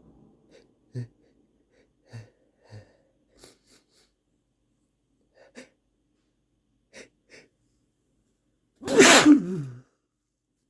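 A person sniffling and catching short breaths several times as a sneeze builds, then one strong sneeze about nine seconds in.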